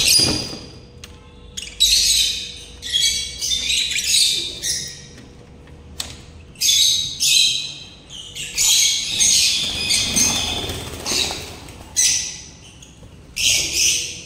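Small cage birds chirping and squawking in repeated bursts of high calls. A short knock comes right at the start.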